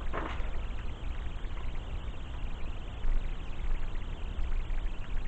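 Sheets of paper rustling and being shuffled by hand, uneven and scratchy, over a low steady background hum.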